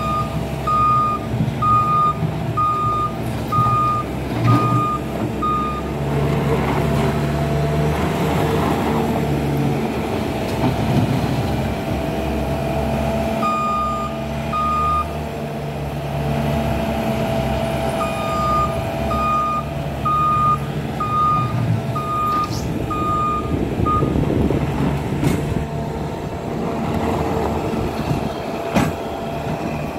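Bobcat S550 skid steer's diesel engine running steadily while it grades. Its back-up alarm beeps about once a second whenever it reverses: through the first six seconds, twice around the middle, and again for about six seconds after that. Now and then there is a sharp knock.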